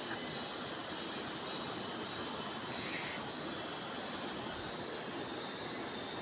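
Rainforest insect chorus: a steady high-pitched drone with a regular pulsing layer above it, over an even hiss.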